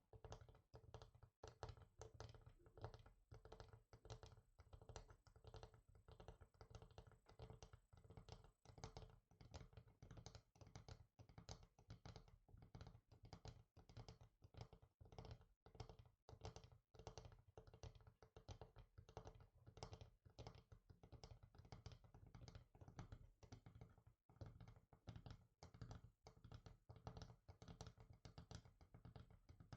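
Fingers tapping quickly and continuously on a hard surface, in quiet, close-miked ASMR taps.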